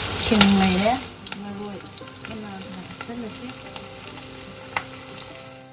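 Oil sizzling in a pot with sliced onion and green chillies frying. The sizzle is loud for about the first second, then drops suddenly to a quieter sizzle.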